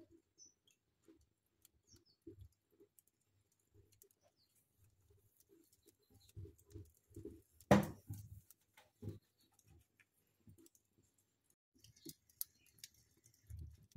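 Faint crackling of a wood fire with scattered small pops and soft low knocks, and one sharp loud pop about eight seconds in.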